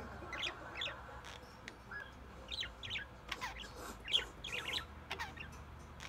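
Pet budgerigars chattering softly: a scattered run of short, high chirps, a few of them falling in pitch.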